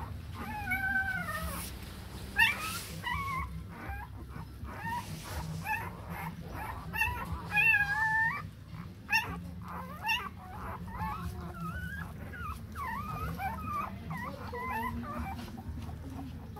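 Puppies whimpering and whining again and again, thin high calls that bend up and down in pitch.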